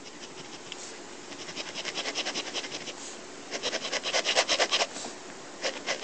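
Pen scratching on paper in quick back-and-forth strokes, hatching in a shaded area, about six or seven strokes a second in two runs with a short pause between.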